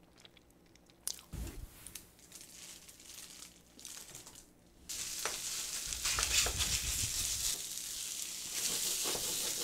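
A plastic bag crinkling as rice is tipped out of it into a pan of spicy stir-fried octopus. About five seconds in, a steady sizzle starts as two spatulas stir and scrape the rice through the sauce to make fried rice.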